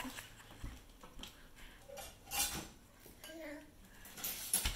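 Dishes and cutlery clattering as they are handled in a kitchen, in a few short bursts, the loudest near the end.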